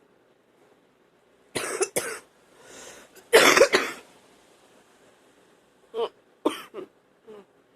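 A woman's wet, phlegmy coughing in fits, the sign of a chest full of phlegm being brought up: two quick coughs, a drawn breath, then a longer, loud, harsh cough. A few seconds later come three shorter coughs and a small one.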